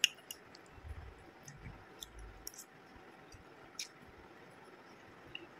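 Faint, scattered clicks of a metal fork against the bowl as noodles are picked up and eaten, with a few soft low thuds.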